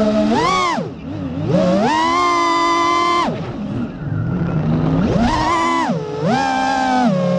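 Vifly X150 FPV quadcopter's brushless motors and propellers whining, heard from its onboard camera, the pitch swooping up and down with the throttle. It climbs sharply, drops away about a second in, climbs again and holds, sags near four seconds, surges again around five seconds and falls back near six.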